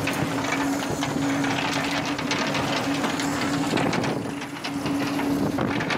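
Fishing boat machinery running with a steady, even hum over a constant rushing noise.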